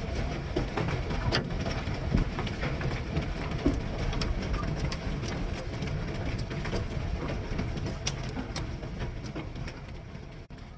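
Storm noise: a steady rush of rain and wind, heavy at the low end, with scattered sharp taps of impacts, fading out near the end.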